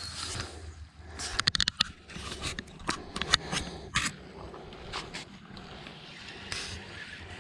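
Footsteps on sand and shell grit, mixed with sharp knocks and scrapes from the body-worn camera being handled. There is a quick cluster of clicks about a second in, then more spaced knocks for a few seconds.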